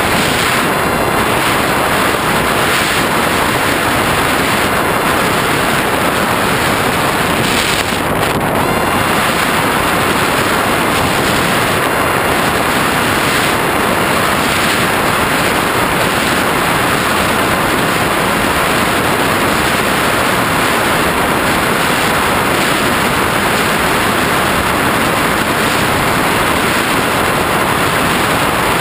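Steady rush of airflow over the onboard GoPro's microphone on a flying-wing FPV model plane in flight, with a faint steady whine underneath.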